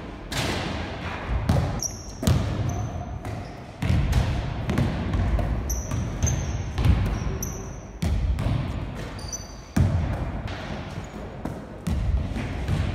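Basketball bouncing on a wooden gym floor, echoing in the large hall: a sharp thud every second or two. Short high squeaks of sneakers on the floor come between the bounces.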